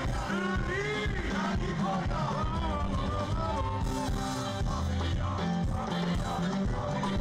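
Live band music played loud over a concert sound system, with singing over a steady bass and drum beat.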